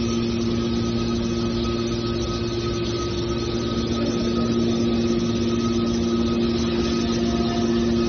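Automatic metal baler's hydraulic power unit running steadily: an even machine drone with a constant hum.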